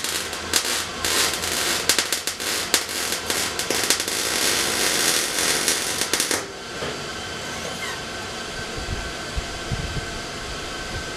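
Electric arc welding on a steel 55-gallon drum: a steady, dense crackle with sharp pops that cuts off suddenly about six seconds in.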